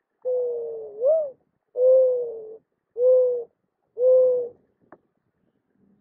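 Mourning dove giving its perch-coo: a long low first note that swoops up in pitch at its end, followed by three shorter, even coos about a second apart.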